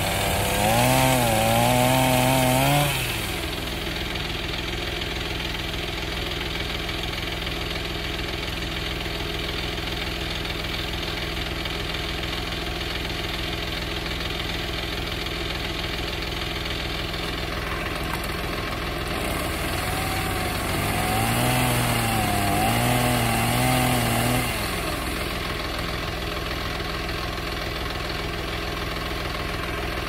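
Chainsaw cutting into a fallen tree trunk in two bursts: about three seconds at the start and about five seconds past the middle, its engine pitch wavering under load while the chain hisses through the wood. Between the bursts a steady engine idles.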